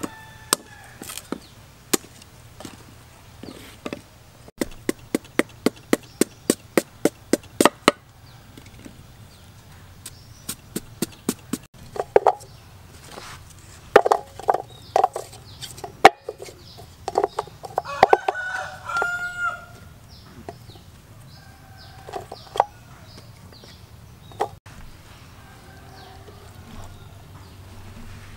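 A cleaver chopping sugarcane on a wooden chopping block in a quick, even run of about three strokes a second, then chickens clucking and a rooster crowing once, about two-thirds of the way through.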